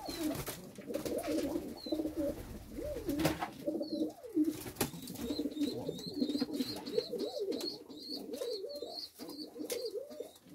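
Several domestic pigeons cooing continuously, their calls overlapping. Faint, high, repeated chirps join in from about halfway through.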